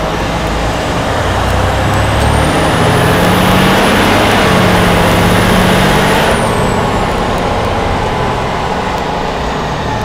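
2008 Seagrave fire truck's diesel engine pulling, heard from inside the cab. It builds about two seconds in with a high whine that holds, then both ease off after about six seconds.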